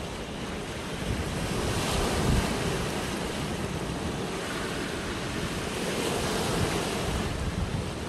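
Small sea waves breaking and washing up a sandy beach around rocks, swelling louder about two seconds in. Wind buffets the microphone with a low rumble.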